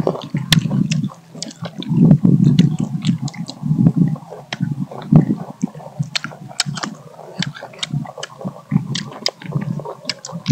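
Close-up eating of mango slices: wet chewing, biting and lip-smacking, with many sharp clicks throughout.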